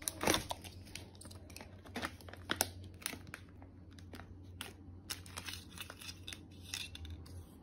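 Paper wrapper of a tea bag being crinkled and torn open by hand: a scattered run of sharp crackles, with a low steady hum underneath.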